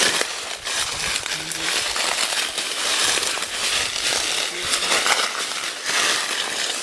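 Footsteps crunching through dry leaf litter and twigs, with branches and leaves crackling and scraping against clothing, backpack and microphone as people push through dense brush.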